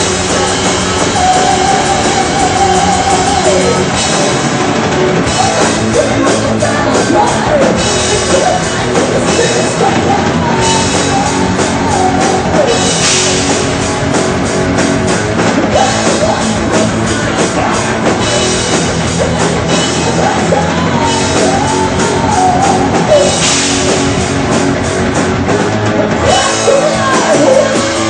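Heavy metal band playing live: distorted electric guitars and a drum kit with cymbals under a male lead singer's sung lines, the first note held for about two seconds near the start.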